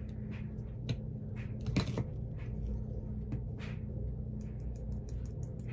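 Light clicks and rustles from handling a small glitter container and paper while loose glitter is poured and shaken over an ornament, the sharpest click about two seconds in. A steady low hum runs underneath.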